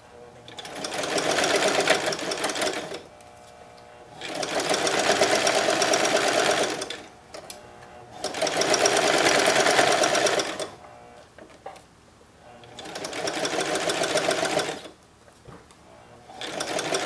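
Singer electric sewing machine stitching a seam in short runs of two to three seconds, each run picking up speed, with a pause of about a second between runs.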